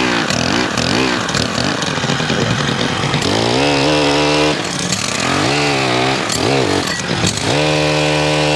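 Stihl HT103 gas pole saw with its small 4-MIX engine, revved up and down several times and held at full throttle for a second or two at a time while cutting branches.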